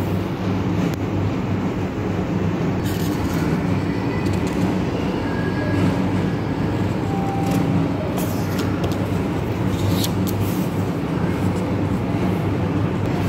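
Steady low mechanical hum, with a few short clicks and rustles scattered through the middle.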